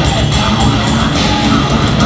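Progressive metal band playing live: distorted electric guitar and heavy low end over a fast, even beat of drum and cymbal strikes.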